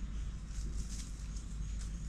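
Dry leaf litter crackling and rustling in short bursts as lemurs move over the forest floor, over short high bird chirps and a steady low rumble.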